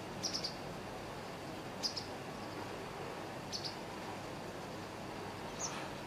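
White wagtail of the Amur race calling: four short calls of one to three quick high chirps each, spaced about one and a half to two seconds apart, over a steady background hiss.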